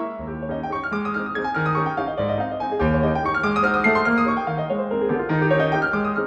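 Background piano music: a run of notes over a bass line that changes every half second or so.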